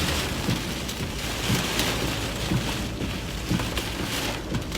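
Heavy rain pelting a vehicle: a steady hiss with irregular heavier knocks, which the chasers think may include a little hail.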